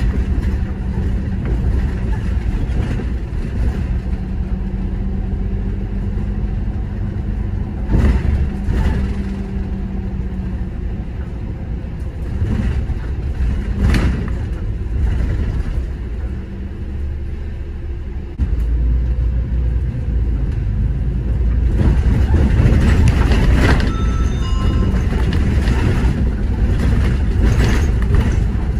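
City bus on the move: steady engine and road rumble with a sharp knock or rattle now and then, twice in the first half. About two-thirds of the way in the rumble steps up and stays louder.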